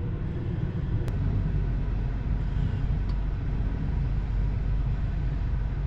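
Steady low rumble inside a Tesla Model 3's cabin, with one sharp click about a second in.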